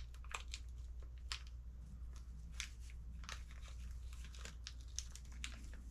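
Light, irregular clicks and scrapes of small RC car parts being handled as a shock absorber is lined up on its mount and a screw is started, over a faint steady low hum.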